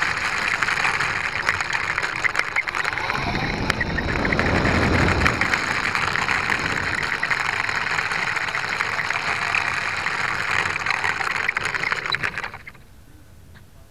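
Slow Stick RC plane's electric motor and propeller running at low throttle on the ground, a steady whir with its pitch wavering early on, then cut off abruptly about a second before the end.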